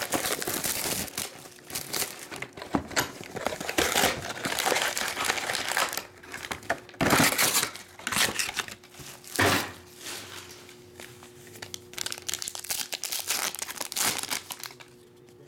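Foil trading-card packs from a Panini Chronicles basketball box crinkling as they are handled by hand and torn open, in irregular bursts of rustling that die down near the end.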